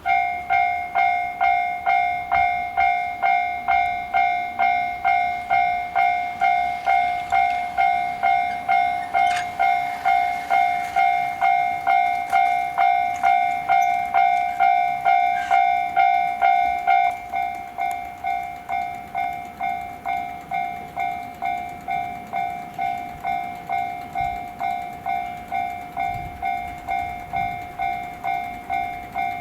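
Japanese railway level-crossing warning bell starting suddenly and ringing in a steady, rapid strike of about two a second. About halfway through the ringing drops in level and one of its tones drops out.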